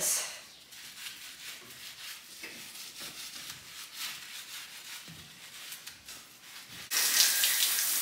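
A calf bottle brush scrubbing inside a glass milk receiving jar, faint and irregular. About seven seconds in, a hose starts abruptly and a loud, steady spray of water rinses the jar.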